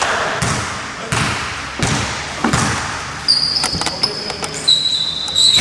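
A basketball bounced on the court floor, five bounces about every 0.7 s, typical of a player dribbling before a free throw; then several short high squeaks in the second half.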